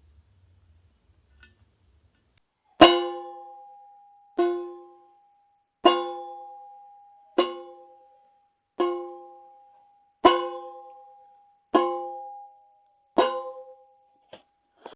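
A bell-like tone struck eight times at an even pace, about a second and a half apart, starting about three seconds in; each strike rings out and fades.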